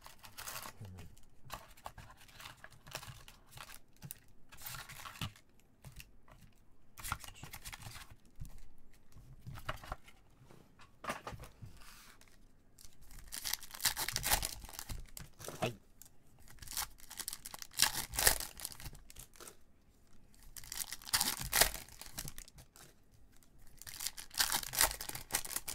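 Foil-wrapped Topps Chrome trading-card packs rustling and crinkling as gloved hands lift them from the box and stack them, with a pack wrapper torn open. The crinkling comes in irregular bursts, louder and denser in the second half.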